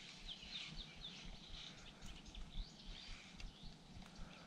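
Faint birdsong: several small birds chirping in quick, short notes over a low, uneven rumble, with a few sharp ticks.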